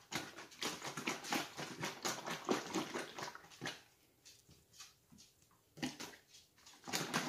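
Buttermilk sloshing in a plastic jug shaken hard, in quick strokes of about three a second that stop about three and a half seconds in, followed by a few softer handling sounds.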